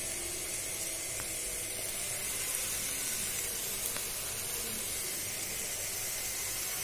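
Shredded cabbage and scrambled egg sizzling in a pan: a steady, soft hiss.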